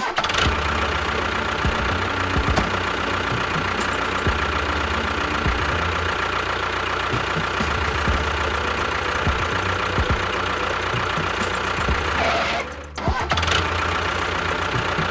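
A small engine running steadily, with a brief drop in sound about thirteen seconds in.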